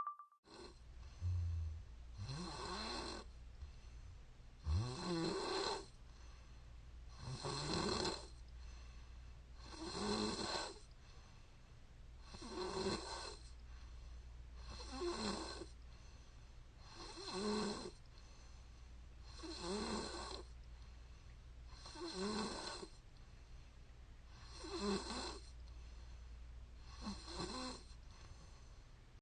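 A woman snoring in a steady rhythm, about one snore every two and a half seconds, over a low steady hum.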